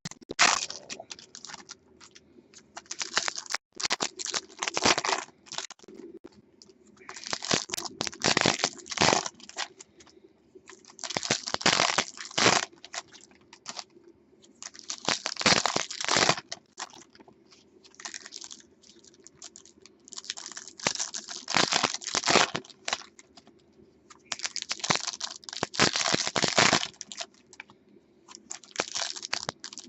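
Trading-card pack wrappers being torn open and crinkled, in bursts every few seconds, as packs of Bowman Chrome football cards are opened.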